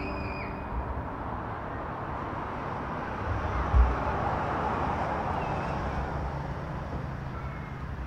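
Road traffic noise that swells as a vehicle passes and then eases off. A single low thump comes about four seconds in.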